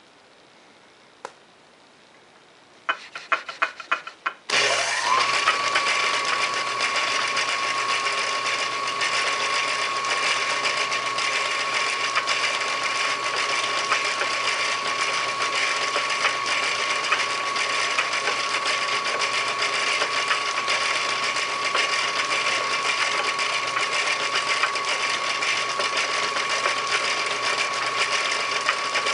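A metal lathe starts up about four seconds in, after a few knocks, its motor whine rising quickly to a steady high pitch. It then runs steadily, spinning a wooden lap coated in lapping compound inside a hand-held steam engine cylinder to lap the bore smooth.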